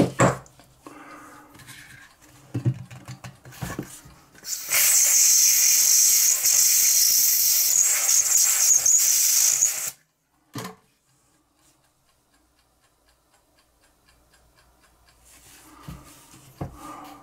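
A few small clicks and knocks from handling a small metal lighter, then a loud, steady hiss of pressurised gas spraying for about five seconds that starts and cuts off abruptly.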